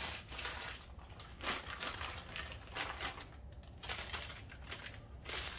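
Scattered light clicks and rustles of small hardware being handled: nuts, bolts and washers going into a steel frame channel.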